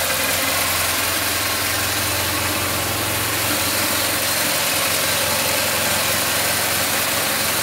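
A 2009 BMW R1200GS's air/oil-cooled boxer twin engine idling steadily.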